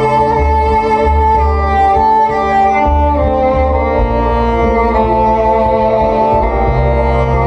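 Six-string NS Design CR6 electric cello being bowed over looped layers of its own recorded parts: sustained higher notes that change every second or so above a repeating low bass figure.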